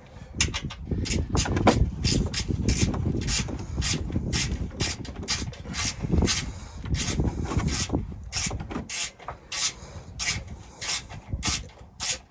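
Hand ratchet wrench turning a bolt, its pawl clicking in steady strokes about twice a second over a rubbing, scraping sound.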